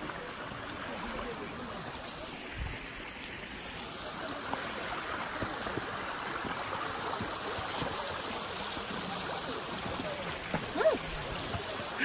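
Shallow spring-fed stream running steadily over rocks and algae, a constant trickling wash. A brief voice cuts in near the end.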